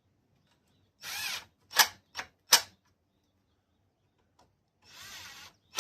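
Cordless impact driver running a bolt into a small mower engine. It spins briefly, then gives three short trigger pulls as it snugs the bolt down. Near the end it spins again, followed by another short burst.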